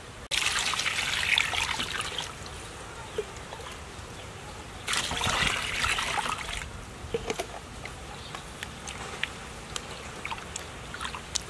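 Water poured from a plastic scoop into a stainless steel bowl of fish, twice: once about half a second in and again about five seconds in. Between and after the pours, hands slosh and rub the fish in the water with small splashes and drips.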